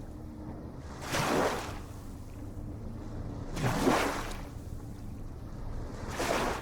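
Ocean waves washing in over a steady low rumble, with three rushing surges of surf: about a second in, near the middle and near the end.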